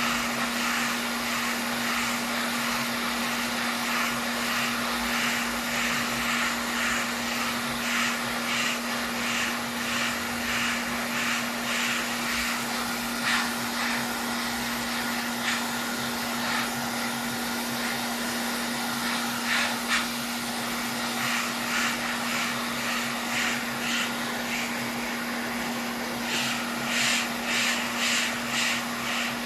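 A small electric blower motor running steadily at a repair bench, a constant hum under an airy hiss, with a soft rhythmic pulsing in the hiss that comes and goes and grows near the end.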